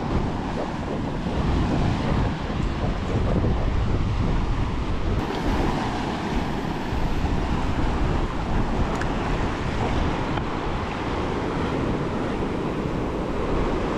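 Ocean surf breaking and washing over a rock platform, with wind buffeting the microphone in a steady rough rush.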